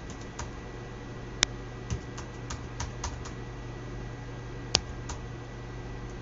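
Keystrokes on a computer keyboard: a dozen or so scattered clicks, two of them louder, over a steady low hum.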